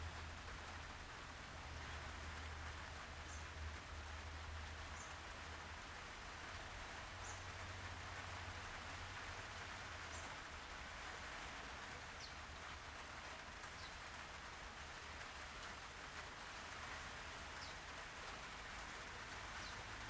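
Faint steady hiss over a low hum, with a few very faint ticks every second or two.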